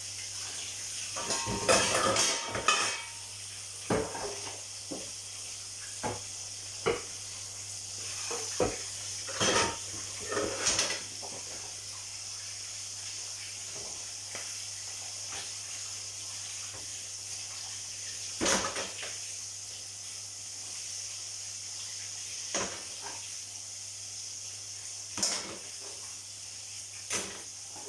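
Dishes, pots and cutlery clattering in scattered knocks, with a busier run about two seconds in, over the steady sizzle of food frying in hot oil.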